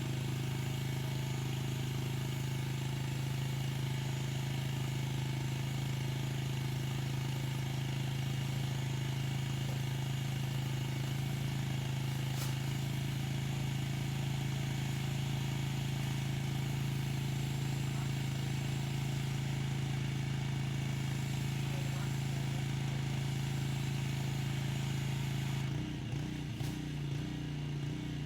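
Pressure washer running steadily: a constant motor hum under the hiss of the water spray. Near the end the hum wavers and breaks up for a couple of seconds.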